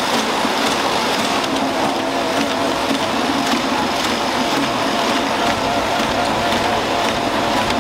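Packaging-line machinery running steadily: the continuous mechanical noise of a flow-wrapping machine and conveyor, with faint clicks now and then.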